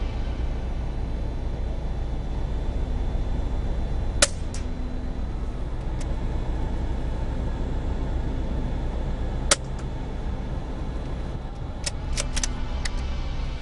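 Two sharp shots about five seconds apart from a moderated CZ 452 .22 rimfire rifle firing subsonic rounds, over a steady low rumble. A few light metallic clicks near the end as the bolt is worked.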